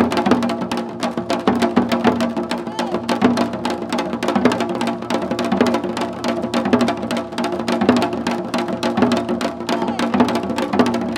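Korean nongak percussion playing seolganggu: janggu hourglass drums struck in fast, dense, unbroken strokes over steady sustained tones.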